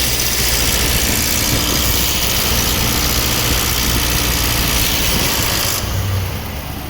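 Ram Hemi V8 engine running with a really fast rhythmic rattling, like lifters slapping rather than their normal tick, which comes on only in eco mode. The mechanic takes it for failing lifters, maybe a camshaft. The higher part of the sound drops away about six seconds in.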